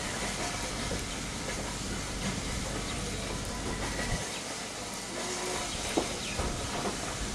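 Wind buffeting an outdoor microphone: a steady hiss over a low rumble that drops away suddenly about four seconds in. A single sharp click about six seconds in.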